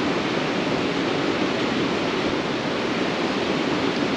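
Steady rush of flowing creek water, an even, unbroken noise with no change in level.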